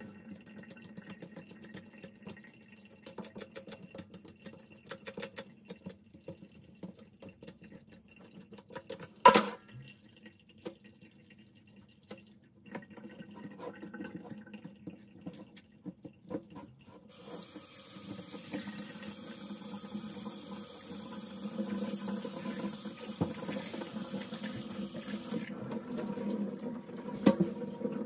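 Quick scratchy clicks with one loud knock about nine seconds in, then a tap is turned on about seventeen seconds in and water runs steadily into a sink.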